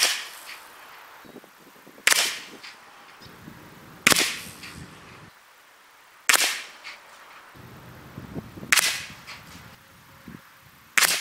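Six shots from an Evanix REX FA .45 big-bore PCP air rifle with a moderator, fired about two seconds apart, each a sharp crack that fades quickly.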